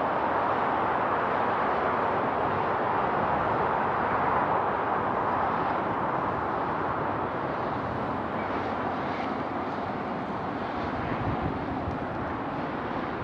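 Suzuki Swift Sport (ZC31S) running, with a steady, even noise and no distinct knock or rattle standing out.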